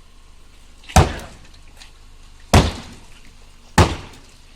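Sledgehammer blows on a Renault Laguna's body, three heavy strikes about a second and a half apart, each followed by a short crunching tail.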